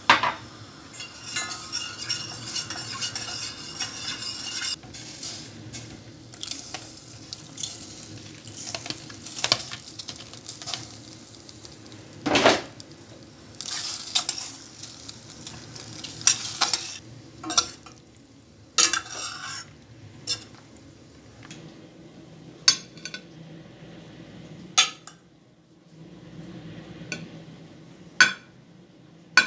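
Metal spoon stirring penne and cream sauce in a stainless steel pot, scraping and clanking against the pot with many sharp knocks, and a few seconds of sizzling near the start. In the last third come a few separate clinks of the spoon on a ceramic serving plate.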